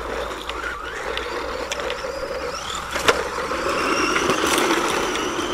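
Electric motor and gear whine of a PXtoys 9200 Piranha 1/12 RC truggy running over gravel, its pitch rising and falling with the throttle over a steady noisy background. A sharp click comes about three seconds in.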